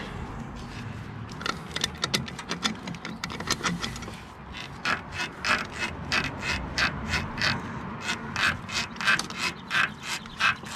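Ratchet spanner clicking as it is worked back and forth to run a nut off: quick uneven clicks at first, then a steady run of about two to three clicks a second.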